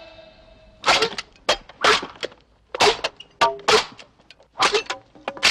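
Katana slicing through green bamboo posts in quick succession: a string of about a dozen short, sharp swishing cracks, irregularly spaced.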